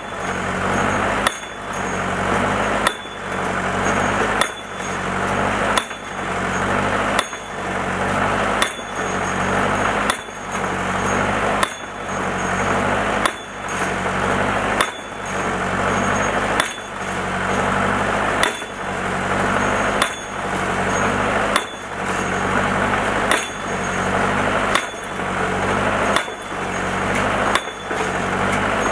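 Homemade falling-anvil post driver, its 350–400 lb sand-filled pipe anvil dropping onto a pipe being driven into the ground: a sharp impact about every one and a half seconds, some twenty in all. Under the strikes a machine's engine runs steadily, growing louder between each drop.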